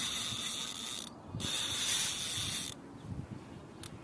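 Fishing reel buzzing with a fast ratchet-like whirr as a hooked catla is played. The whirr breaks off briefly about a second in and stops suddenly near three seconds.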